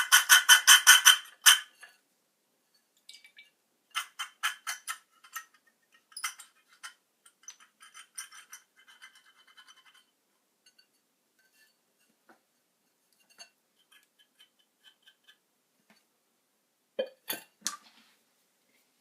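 Runs of rapid, sharp metallic clicks and clinks from repair handling of tools or small metal parts. The loudest run comes in the first second and a half, fainter runs follow a few seconds in, then scattered light ticks and a couple of sharp clicks near the end.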